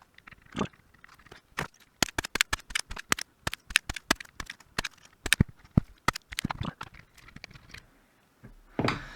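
Rapid, irregular sharp clicks, taps and scrapes of tools working on a circuit board while a DIP chip is desoldered and removed, with a short rougher burst near the end.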